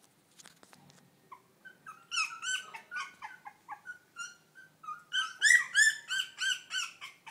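Young puppies whining in a rapid run of short, high-pitched squeals, about three or four a second, getting louder about five seconds in.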